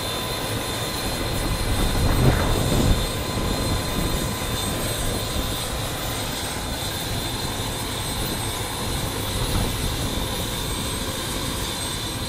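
Small turbine helicopter idling on the ground with its main rotor turning, a steady engine whine over a broad rush of noise. A brief louder low rumble comes about two seconds in.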